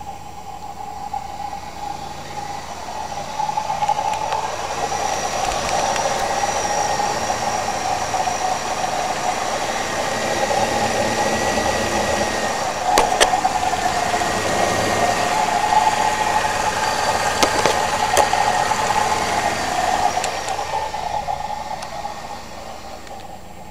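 Chevrolet 3800 V6 idling with a continuous whirring, rattling noise like a bad pulley bearing, with a few sharp ticks. The owner suspects a failing water pump bearing, since the noise is there only while the engine is cold. It grows louder a few seconds in and fades near the end.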